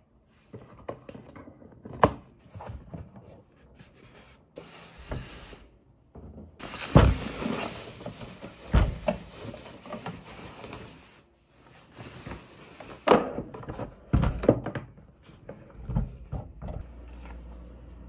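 An air fryer being unboxed: cardboard packing is handled and the fryer's wrapping rustles in stretches, the longest a few seconds after the start. Scattered knocks and thunks as the box and fryer are moved and set down on a table.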